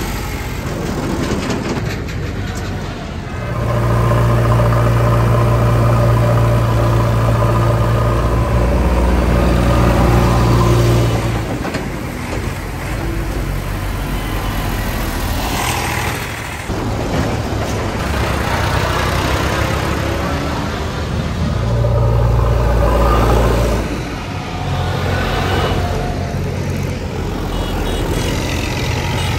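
Diesel engines of an Eicher 485 and a Mahindra 275 DI XP Plus tractor running as the tractors drive past one after another, towing trolleys. The low engine drone swells loud about four seconds in and again a little after twenty seconds.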